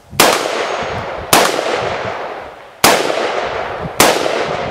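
Colt AR-15 rifle firing four semi-automatic shots, roughly a second or more apart, each trailing off in a long echo.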